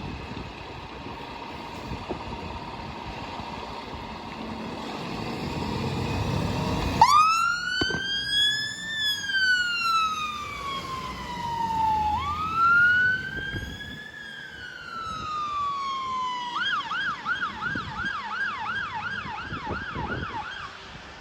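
Fire engine approaching with its engine and road noise growing, then its siren coming on about seven seconds in: two slow rising-and-falling wails, then a switch to a fast yelp that stops shortly before the end.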